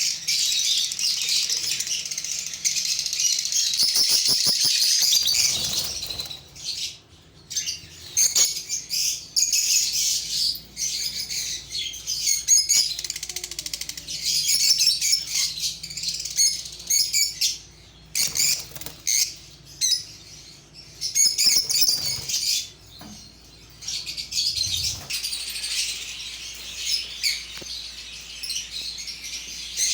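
Many caged parrots chirping and chattering at once, a dense high-pitched din that comes in waves with brief lulls.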